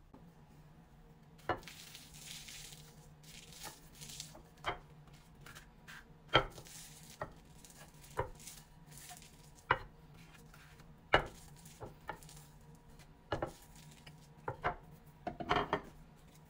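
A wooden rolling pin pressing and rolling a slice of crustless bread flat on an end-grain wooden cutting board. There are about a dozen sharp wooden knocks, roughly one a second, with soft rubbing between them.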